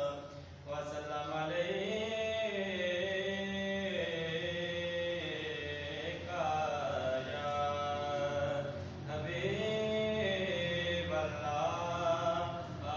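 A young man's voice chanting an Islamic religious recitation in long, melodic held phrases, pausing briefly for breath about half a second in and again about nine seconds in.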